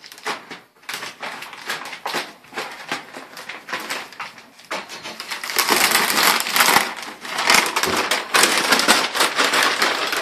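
Masking paper and plastic sheeting being peeled off a freshly painted truck door and bunched up, crinkling and crackling. It gets louder and denser about halfway through.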